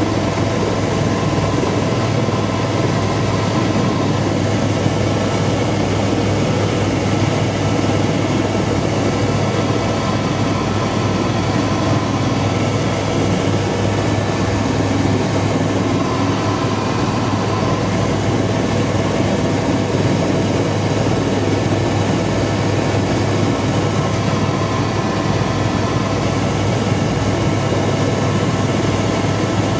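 Helicopter in flight, heard from inside the cabin: a loud, steady drone of engine and rotor with a strong low hum and a few steady whining tones.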